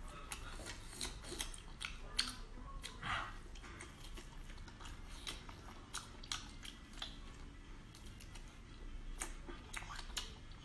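Close-up mouth sounds of a person chewing chili-coated octopus: irregular wet clicks and smacks, with a longer slurp about three seconds in.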